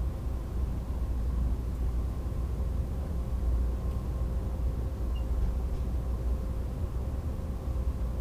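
AVE Series 103 high-speed train running at speed, heard from inside the passenger cabin: a steady low rumble with a faint steady hum over it.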